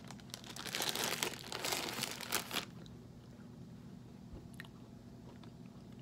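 Plastic biscuit wrapper crinkling as it is handled and turned over, for about the first two and a half seconds, then a quieter stretch with a few faint clicks.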